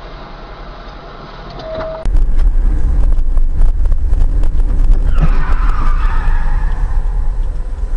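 A car driving: after a quiet hum, a sudden loud low road-and-wind rumble with crackles, then tyres skidding from about five seconds in.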